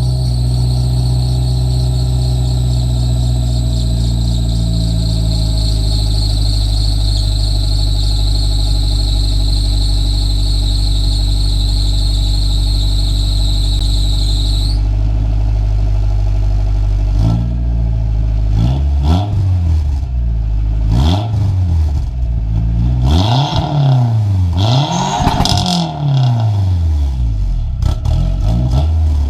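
Turbocharged 4G64 four-cylinder engine of a 3G Mitsubishi Eclipse, running on its first start through a new exhaust with cat and resonator deleted. It idles steadily with a high-pitched whine over it that stops about 15 seconds in; from about 17 seconds it is revved about half a dozen times, the pitch rising and falling with each blip.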